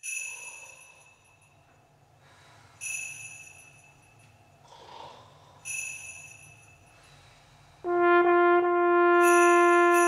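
A high bell rings three times, about three seconds apart, each ring fading away. About eight seconds in, a trombone section comes in loud with a held chord, and jingle bells join it.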